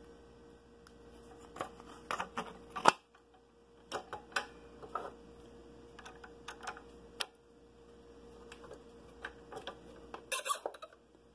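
Scroll saw blade being threaded through a drilled starter hole in the wood and clamped back into the saw's upper arm, with the saw not running: scattered small clicks and taps from handling the blade, clamp and workpiece, the sharpest click about three seconds in.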